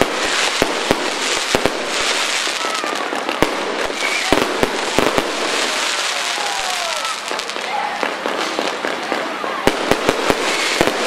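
Aerial firework shells bursting in quick succession: sharp bangs over a continuous crackle of burning stars, with the bangs coming thickest in the first couple of seconds and again near the end.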